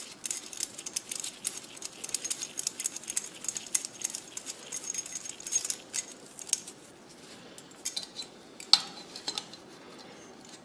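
Small metal bicycle parts clicking and clinking in quick, irregular taps as a front derailleur is handled and fitted. The taps are dense at first and thin out after about six seconds, with a few louder clicks near the end.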